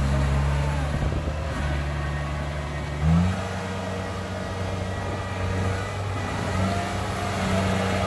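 Tracked rice combine harvester's diesel engine running under load as the machine works through deep mud. About three seconds in, the engine note shifts abruptly with a brief louder surge, then runs on steadily.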